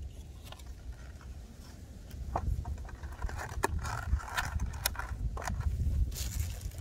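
Fork tapping and scraping in a styrofoam takeout container while the container is handled: a string of sharp clicks and scrapes that gets busier and louder about two seconds in. Under it runs the low rumble of wind on the microphone.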